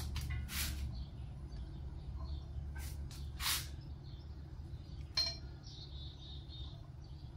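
Tools and metal parts clinking a few times, the sharpest clink about five seconds in with a brief ring, plus two short hissing bursts, over a steady low hum.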